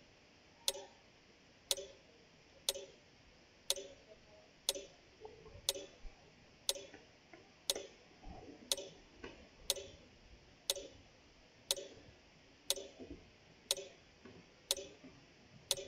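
Clock-style ticking at a steady one tick a second, keeping time with a running stopwatch timer.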